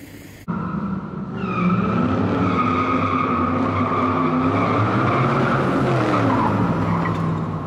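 Car burnout sound effect: an engine running hard while the tyres squeal in a steady screech. It starts suddenly about half a second in, and the squeal joins about a second later.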